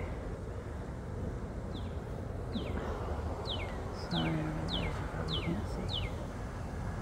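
A songbird singing a series of about seven clear whistles, each falling steeply in pitch, repeated at roughly two a second, over a steady low background rumble. A brief low hum sounds about four seconds in.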